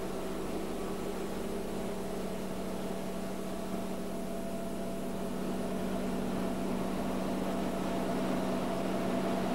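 Hydraulic drive of a gantry crane trolley running: a steady machine hum with a strong low tone and a few higher tones over a hiss, growing slightly louder in the second half.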